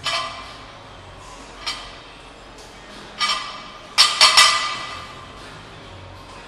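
Iron plates on a loaded barbell clanking against the bar as it is lifted and lowered during barbell rows: a series of metallic clanks with a ringing tail, the loudest a quick run of three about four seconds in.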